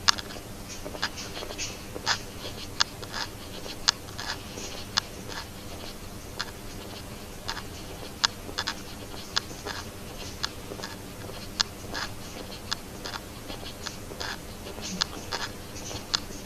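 Footsteps of people walking across a concrete workshop floor: sharp, irregular steps about two or three a second, over a faint steady hum.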